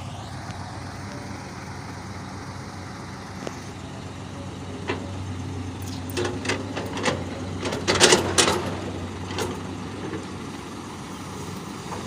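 Heavy diesel truck engine idling steadily, with a cluster of sharp clicks and short hissing bursts about two-thirds of the way through.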